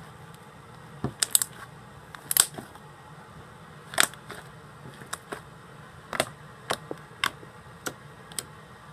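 Fluffy slime being squeezed and poked by hand, giving irregular sharp clicks and pops. They come in quick little runs at first, then singly about every half second.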